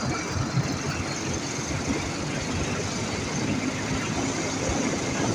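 Freshly overhauled Ural motorcycle's flat-twin engine running on a ride, with steady engine and road noise and irregular low thumps.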